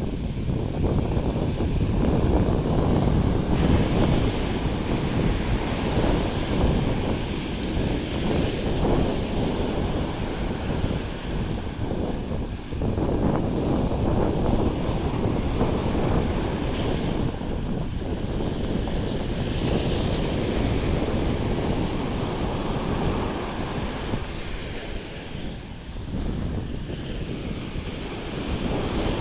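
Sea waves washing onto the shore with wind buffeting the microphone, a steady noisy rush that swells and eases.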